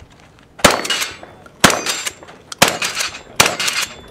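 Mossberg 590 pump-action shotgun fired four times, roughly a second apart, at steel targets. Each loud shot is followed by the ring of the struck steel plate.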